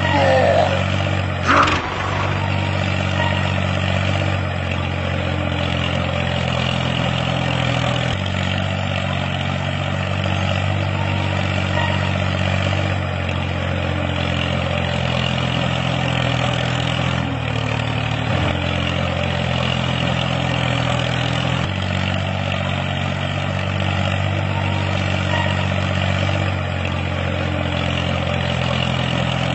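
Tractor engine idling steadily, an engine sound laid over a toy tractor, with a short falling sound in the first two seconds.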